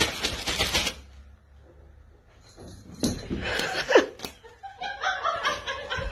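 Rapid clicking in the first second, then after a short lull a person laughing in short repeated bursts.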